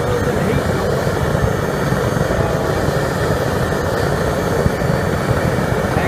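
Forced-air propane burner roaring steadily as it fires a homemade bucket furnace, loud enough to overwhelm the phone's microphone.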